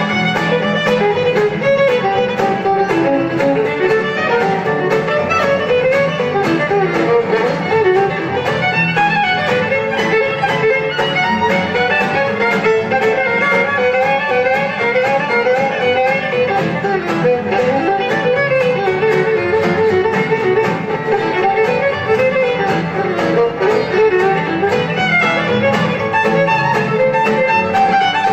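A fiddle bows a melody over acoustic guitars strumming a steady rhythm.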